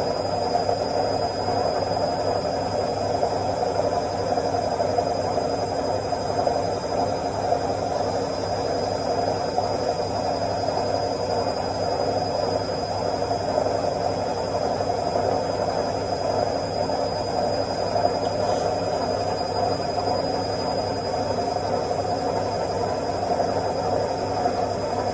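Washing machine in its spin cycle, the drum spinning at a steady speed with an even whirring rumble and a faint steady high whine.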